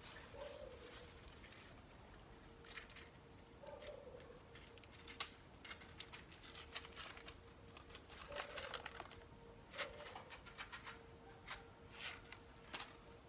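A dove cooing faintly: four short, low coos spread a few seconds apart, over scattered light clicks and taps.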